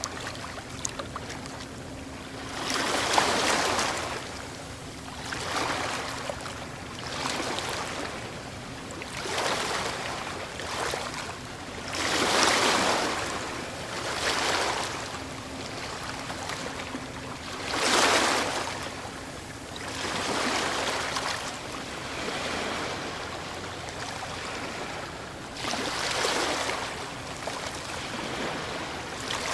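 Ocean waves breaking and washing on a shore, the surf rising and falling in a new surge every few seconds; the biggest breakers come about three, twelve and eighteen seconds in.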